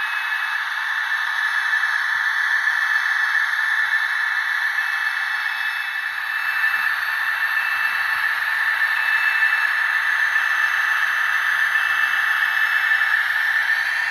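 Sound decoder in a Trix N-gauge model of the DB class 210 locomotive, which has an added gas turbine, playing its running sound through a tiny loudspeaker. The sound is a steady, thin hiss with no bass, and a faint whistling tone comes and goes.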